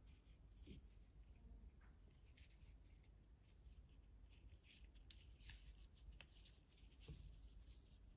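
Near silence, with faint rustling and light ticks as yarn is pulled through crocheted jute fibre with a crochet hook.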